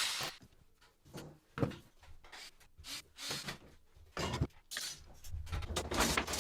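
Steel F-clamps being handled and set onto wall brackets: irregular metallic clinks and knocks, busier near the end.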